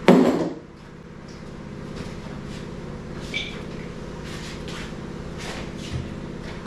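A loud clatter right at the start, then a steady mechanical hum throughout, with light scattered knocks and clanks as the new tire changer is handled.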